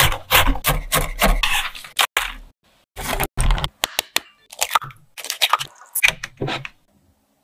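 Large kitchen knife chopping roasted walnuts on a wooden cutting board: quick crunchy chops with the blade knocking on the board. There is a dense run of chops, a short pause, then sparser chops that stop shortly before the end.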